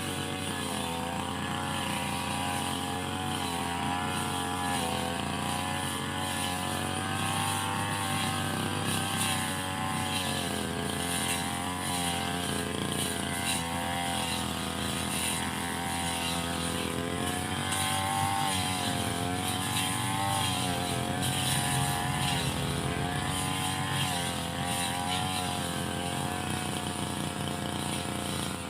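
Small petrol engine of a brush cutter running continuously at high speed, its pitch wavering up and down as it cuts grass.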